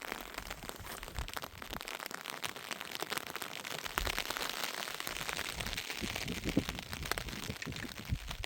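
Heavy rain falling, a dense crackle of many drops with scattered louder hits.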